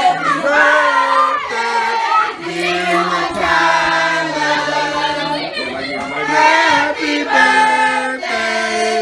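Several voices singing together unaccompanied, holding long notes in a slow carol-like line.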